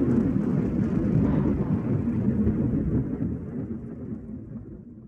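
Deep, noisy rumble with no clear pitch, steady at first and then fading away over the last two seconds.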